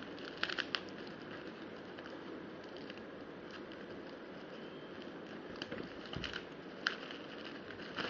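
Packaging being handled during an unboxing: light crinkles and small clicks over a steady background hiss, with a few sharper clicks about half a second in and again around six to seven seconds.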